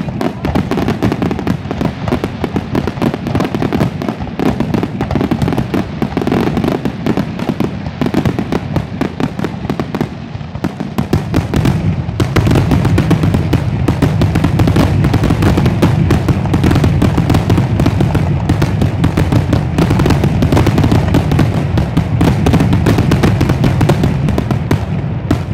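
Aerial fireworks finale barrage: a loud, continuous run of rapid bangs and crackling shell bursts, heavier and louder from about halfway through.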